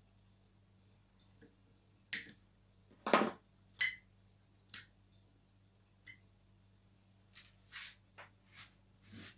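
Side cutters snipping the old BMS balance-lead wires on a lithium-ion battery pack: a string of about ten sharp clicks and snips, with the wires being pulled free and the cutters set down on a wooden table.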